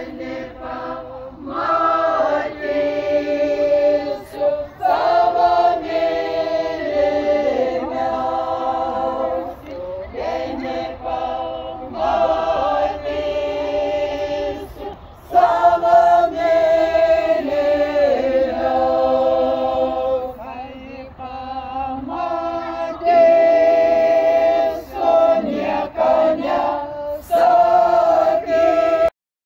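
A small mixed group of women's and men's voices singing a folk song together without accompaniment, in phrases of held notes with short breaks between them. The singing cuts off abruptly near the end.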